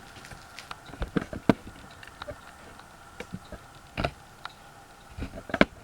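A few scattered, irregular sharp clicks and knocks over a faint steady hum. The loudest come about a second and a half in and near the end.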